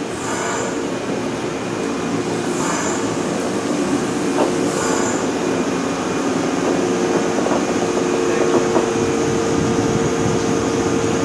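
Electric trains at a station platform: a steady electric hum while the red Resort 21 train on the next track rolls slowly past, slowly growing louder. Three short, hissy squeals come in the first five seconds.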